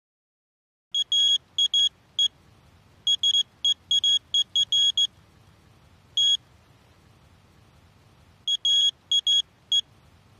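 High electronic beeps in irregular clusters of short and longer tones, starting about a second in, pausing for a few seconds in the middle, with a last cluster near the end. A faint low hum runs beneath them.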